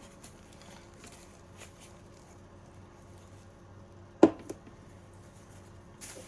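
Quiet rummaging through packaging and products. There is one sharp knock about four seconds in, a lighter one just after, and a short rustle near the end.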